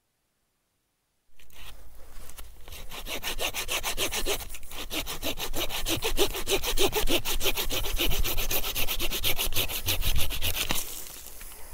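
Hand saw cutting through a fallen branch in quick, steady back-and-forth strokes, starting about a second in and stopping shortly before the end.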